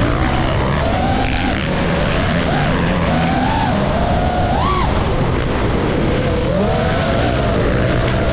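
Motocross dirt bike engines revving hard, their pitch rising and falling over and over as the riders throttle on and off, with one sharp rev about five seconds in.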